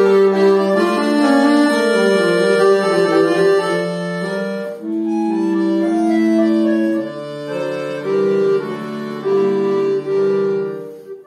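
Button accordion (bayan) playing several voices of held notes at once, the lines moving in steps; near the end the sound briefly drops and a new sustained chord follows.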